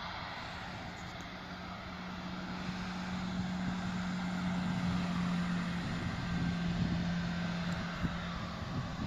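Jet airliner engines heard from a distance, a steady rushing noise with a low hum that swells to a peak about halfway through and then starts to fade.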